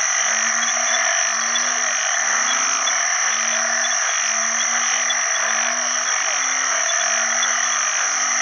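Banded bullfrogs (Asian painted frogs, Kaloula pulchra) giving their male mating calls: short, low, droning notes about half a second long, repeating and overlapping from several frogs at once. They sound over a dense, steady background chorus with a continuous high whine.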